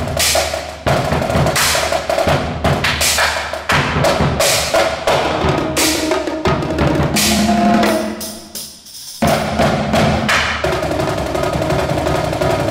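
Live percussion ensemble playing: fast strokes on drums and a bass drum, under pitched notes from a mallet keyboard. The playing thins out briefly near nine seconds, then comes back in full.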